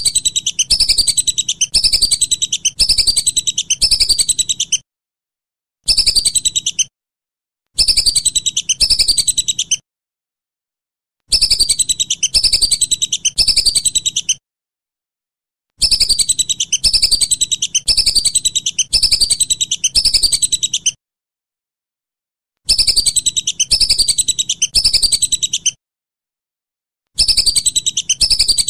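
Whistling duck (belibis) calling in bouts of a few seconds, each a fast run of falling, pulsed whistles about two a second, with short silent gaps between bouts.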